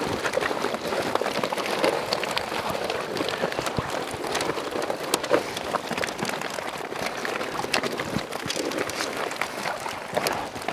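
Water pattering off a keepnet full of small bream just lifted from the river, with the fish flapping and slapping in the mesh as many quick irregular clicks.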